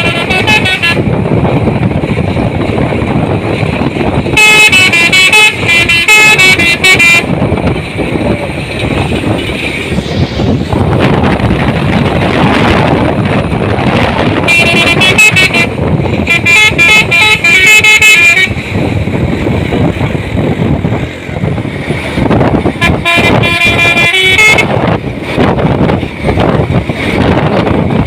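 Telolet horn on a Fuso truck playing its multi-note melody in bursts: a short blast at the start, then three longer runs spaced several seconds apart. Under the horn is a steady rumble of engine and road noise.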